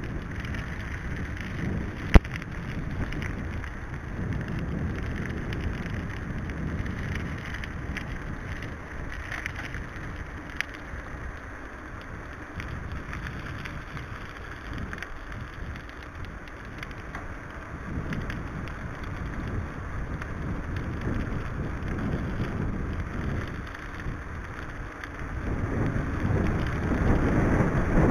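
Wind buffeting the microphone of a bike-mounted camera over the rumble of mountain-bike tyres rolling on tarmac, with a sharp click about two seconds in. The wind noise grows louder near the end.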